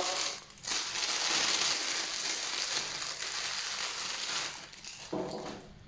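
Plastic packaging crinkling and rustling as a small item is unwrapped by hand, for about four seconds.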